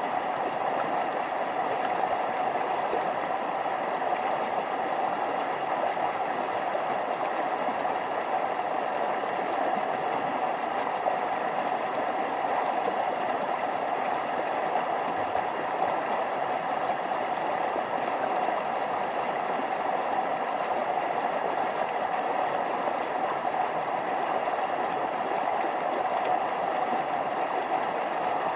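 Forest stream running steadily over small waterfalls: an even, unbroken rushing of water.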